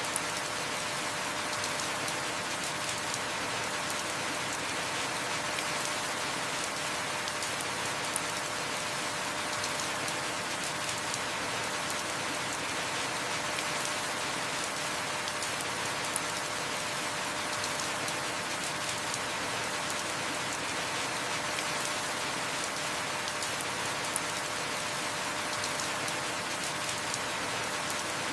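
Steady heavy rain: a dense, even hiss of drops falling on a surface, with a faint sharper tick about every eight seconds.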